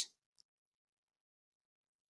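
Near silence, after the tail of a spoken word at the very start, with one faint tick about half a second in.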